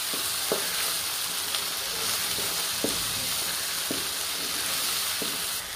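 Lobia (black-eyed beans) sizzling steadily in oil and masala in a non-stick karahi while being stirred with a wooden spatula, which gives a few light knocks against the pan. The beans are being bhuna-fried in masala that has already released its oil.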